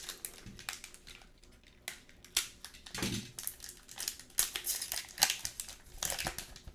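Hockey card pack wrapper being opened and crinkled by hand: a run of irregular crackles and rustles, louder in spells.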